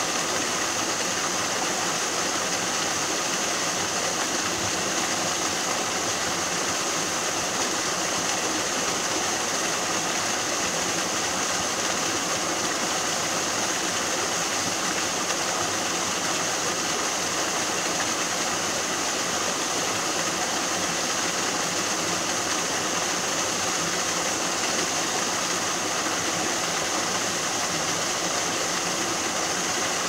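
Small waterfall pouring over rocks into a pool, a steady unbroken rush of falling and splashing water.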